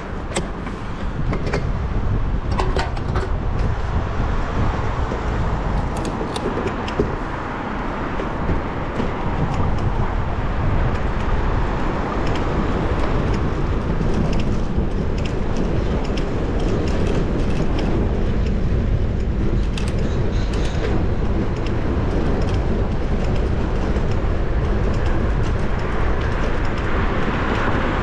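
Ride noise from a moving GoPro 10: wind rushing on the microphone and city road traffic passing. A few sharp clicks or rattles come in the first seven seconds and again about twenty seconds in.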